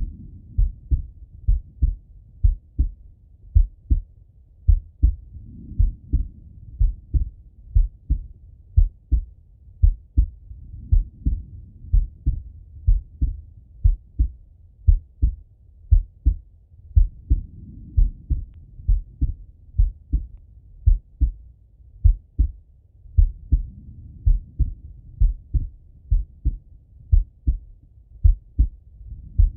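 A man's heartbeat heard through a stethoscope, beating slowly and evenly, each beat a double lub-dub thump. A faint rushing sound swells and fades about every six seconds underneath.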